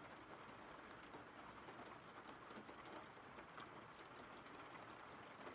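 Faint, steady rainfall: an even hiss with a few light drop ticks.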